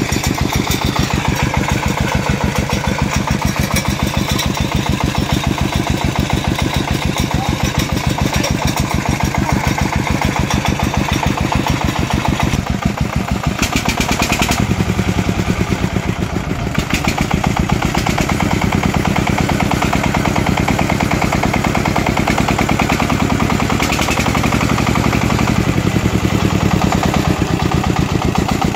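Single-cylinder diesel engine of a two-wheel walking tractor pulling a loaded firewood trailer, running with a steady, even beat. Its note changes about halfway through.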